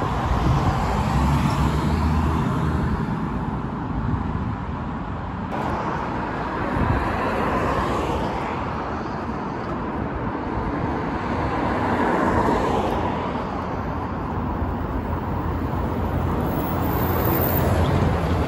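Diesel city bus engine and road traffic: a bus pulls away, then steady traffic noise along a multi-lane road, swelling near the end as a bus comes in close.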